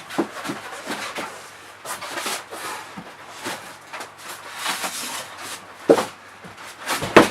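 Handling noise from PC parts being worked by hand: a run of small clicks and rustles, with two sharper knocks, one about six seconds in and one near the end.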